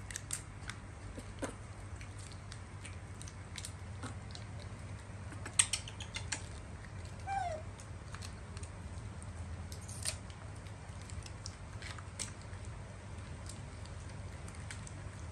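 Scattered light clicks and taps over a low steady hum, with a sharper click twice, and one short squeak falling in pitch about seven seconds in, as from a baby monkey.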